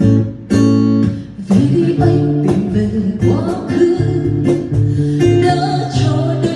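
Acoustic guitar strumming chords, with a woman's singing voice coming in about a second and a half in.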